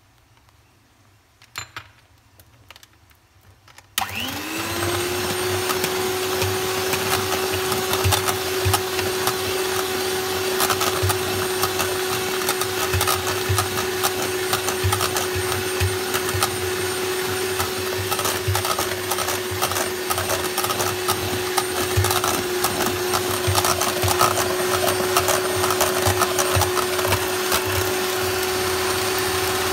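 A few light taps, then about four seconds in an electric hand mixer switches on. Its motor whines up quickly to a steady pitch and runs without a break as the beaters whip creamed butter, sugar and egg in a stainless steel bowl, with frequent ticks of the beaters against the bowl.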